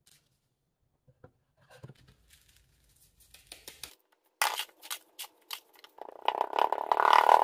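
Foundry sand being scraped and packed by gloved hands into a wooden casting flask around a sprue pin: a few faint brush strokes at first, then from about halfway a run of loud gritty scraping strokes, becoming a dense, continuous rustle in the last second and a half.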